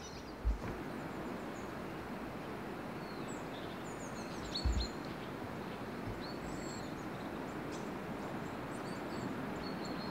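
Small songbirds chirping with short high calls and quick sweeps, scattered through a steady background hiss of forest ambience. Two brief low bumps come about half a second in and just before the middle.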